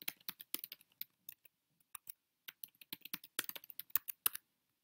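Computer keyboard typing: quick, irregular keystrokes with a short lull near the middle, as a password is typed and then typed again.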